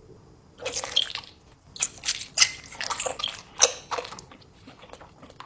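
Close-miked biting and chewing of food: a run of irregular crunchy, wet mouth sounds starting about half a second in.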